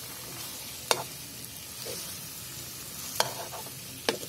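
Steel ladle stirring potatoes and capsicum in a steel kadai, clinking sharply against the pan three times over a steady sizzle of frying.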